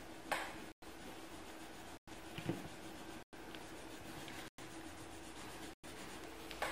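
Pencil scratching and rubbing on paper as a drawing is shaded in, with a few small knocks. A faint steady hum lies underneath.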